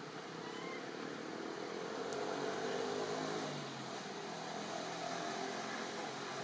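A motor vehicle's engine running steadily, growing louder toward the middle and then easing off, with a brief high chirp about half a second in.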